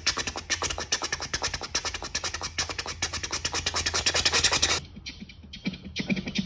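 Train-track sound effect: a fast, even chugging of scratchy strokes, about seven a second, that cuts off suddenly about five seconds in. About a second later a new, bassier rhythmic chug begins.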